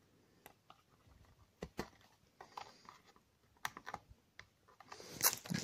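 Small scale-model pieces, a miniature hand truck with crates and a figurine, clicking and tapping lightly as fingers set them down on a plastic diorama sidewalk. A dozen or so scattered soft ticks, with faint handling rustle between them.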